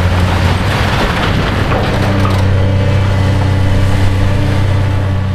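Caterpillar tracked excavator's diesel engine running steadily with a low hum, its note getting fuller about two seconds in.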